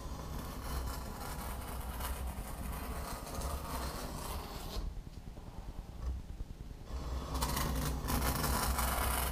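A razor blade scraping along a steel straightedge, slicing through the carbon-fibre cloth skin of a vacuum-bagged foam wing in light passes. One pass runs for about the first five seconds, there is a short lull, and a second, louder pass starts about seven seconds in.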